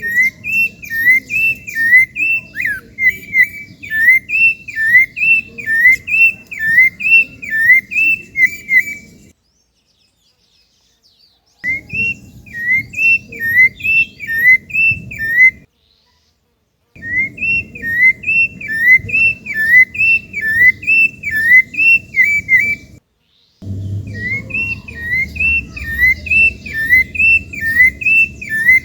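Rufous-bellied thrush singing a fast, repetitive whistled phrase, a pair of slurred notes about twice a second, with faint higher chirps and a low rumble behind it. The sound cuts out completely three times, for a second or two each.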